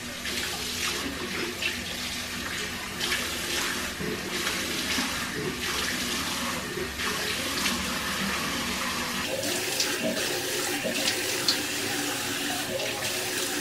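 Water running from a tap into a sink, steady and splashing, with a few light knocks now and then.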